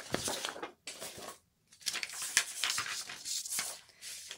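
Thin plastic sheets and films from an LCD panel crinkling and rustling as they are handled, with small clicks and a brief pause about a second and a half in.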